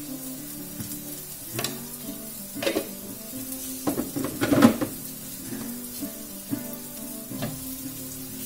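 Spatula scraping and stirring in a wok of crab masala frying over a gas flame, with sizzling underneath. A few clattering strokes come early, and a louder burst of scraping about four seconds in.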